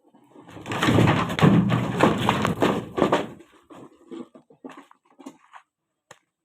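Shuttering plywood being pried and pulled off set concrete: about three seconds of dense scraping and knocking, then scattered light knocks.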